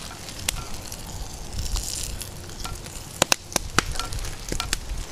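Wood fire crackling, with a sharp pop about half a second in and a cluster of pops around three to four seconds in, over a steady hiss and sizzle from the fire and the cup of rice and water boiling on it.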